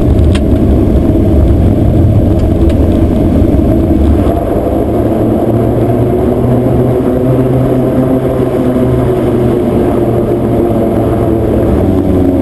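The Let L-410 UVP-E20's twin turboprop engines and propellers running steadily on the ground, a loud low drone heard inside the cockpit. The level eases slightly about four seconds in, as a steadier hum settles in.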